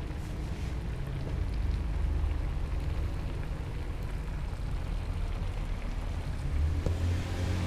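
Gas stove burner running under a wok: a steady low rumble, with the sauce in the wok simmering over it.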